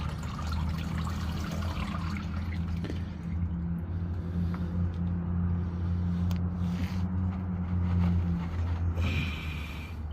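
Used engine oil pouring in a steady stream from the open drain plug of the Ram 1500's oil pan into a drain bucket, splashing off the crossbar, over a steady low hum.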